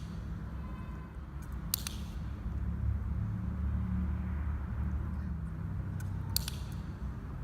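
Two sharp double clicks, one about two seconds in and another near the end, over a steady low rumble.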